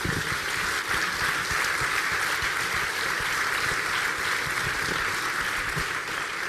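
Audience applauding steadily: many hands clapping at once, a dense, even crackle.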